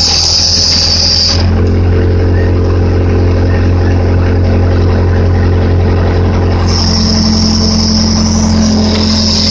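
Case 580D backhoe's diesel engine running steadily while the backhoe digs, with a high whine that stops about a second and a half in and comes back near the end.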